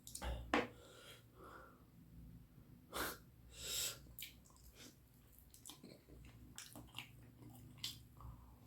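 Close-miked eating of curry and rice: scattered wet chewing clicks and lip smacks, with a loud breath or sniff about three and a half seconds in.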